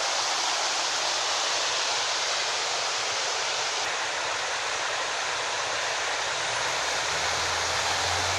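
Steady rushing noise of a fast-flowing flooded river. A low vehicle engine hum comes in near the end.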